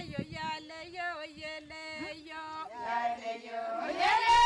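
Women's voices singing a song together, unaccompanied, in long held notes; the singing swells louder near the end.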